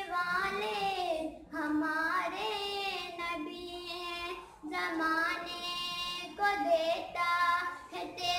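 A young girl singing solo in long, held melodic phrases that glide between notes, with brief pauses for breath between phrases.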